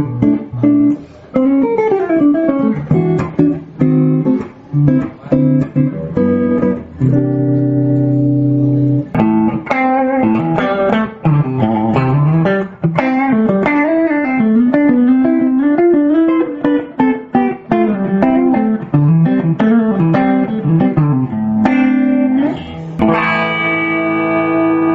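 Bacchus Handmade Series G-Player guitar played solo: picked melodic runs and chords. It ends on a chord left ringing for the last couple of seconds.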